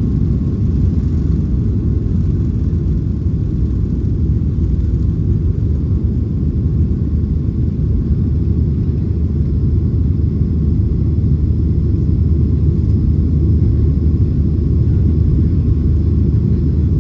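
Cabin noise of a Boeing 737-800 during take-off and initial climb, heard from a seat over the wing: its CFM56-7B turbofans at take-off thrust make a steady, loud low rumble with a faint high whine above it.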